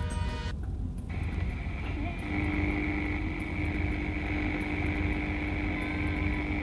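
Low, steady rumble of a car driving, heard from inside the cabin. Music cuts off about half a second in, and about two seconds in a steady held tone comes in over the rumble.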